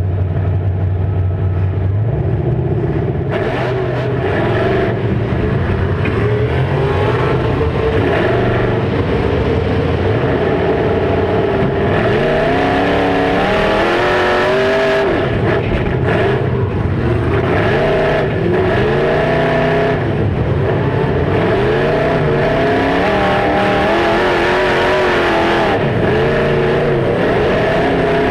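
Demolition derby cars' engines running hard, several at once, revving up and down over and over. A steady low engine drone holds for about the first two seconds before the revving starts.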